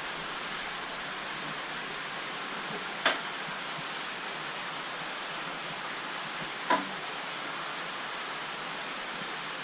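Steady rush of water flowing in a large aquarium tank, with two sharp knocks about three and a half seconds apart.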